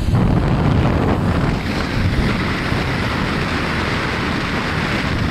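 Wind rushing over the microphone, a steady loud noise with a low rumble underneath.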